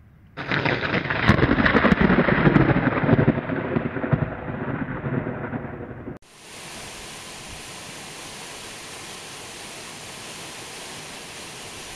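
Thunder: a sudden crackling clap about half a second in, then a rolling rumble that fades over several seconds and cuts off abruptly. After that, the steady rushing hiss of a waterfall.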